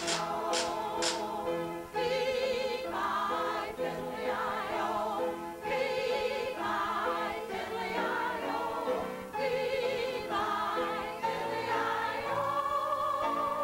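A group of elderly women singing together in unison with vibrato, accompanied by an upright piano.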